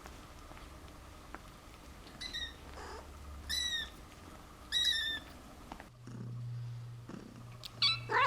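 Young kittens mewing: a series of short, high, slightly falling cries, with a louder cry near the end. A steady low hum sets in partway through.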